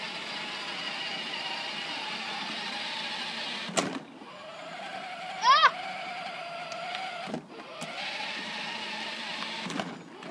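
Electric drive motors of a battery-powered ride-on toy jeep whining steadily as it drives, cutting out with a click about four seconds in and again about seven seconds in, starting up again each time. A child's short high squeal comes about halfway through.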